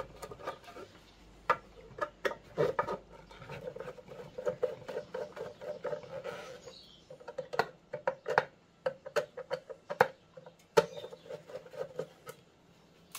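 Hand screwdriver backing screws out of a steel transformer case: runs of short, rapidly repeated creaks as the screws turn in the metal, with a few sharp clicks in between.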